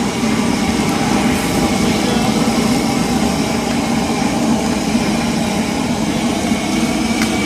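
Chapli kababs sizzling steadily in a wide pan of deep-frying oil, under a loud, steady low rumble.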